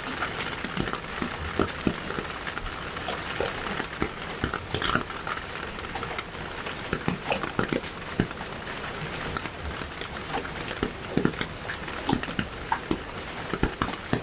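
Irregular soft clicks and patters, several a second, over a steady hiss.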